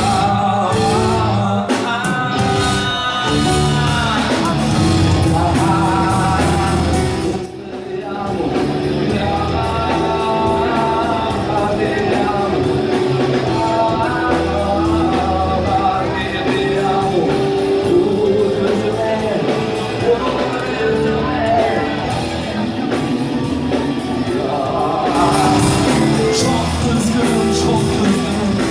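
Rock ballad music: a full band with guitar carrying a melodic lead line, with no sung lyrics. The band drops briefly about seven and a half seconds in.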